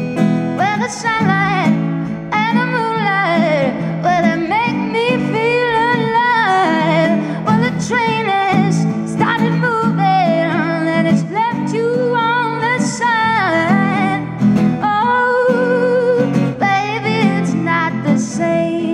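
A woman singing a blues song in phrases, accompanied by her own acoustic guitar played through the gaps.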